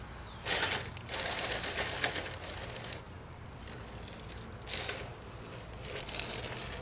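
Radio-controlled scale rock crawler's small electric motor and geared drivetrain running in uneven bursts as it climbs over boulders.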